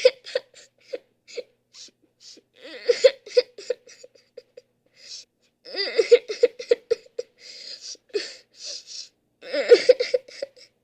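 A person sobbing: four bouts, about three seconds apart, of short stuttering cries with breathy, catching inhales between them.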